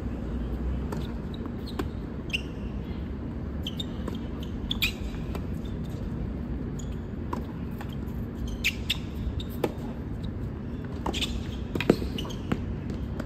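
Scattered sharp knocks and short high squeaks over a steady low hum, the loudest knock a little before the end.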